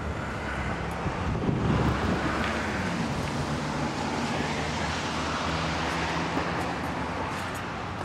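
Traffic on a snow-covered street: vehicle tyre noise on the slushy road swells about a second and a half in and slowly eases off, over a low engine hum.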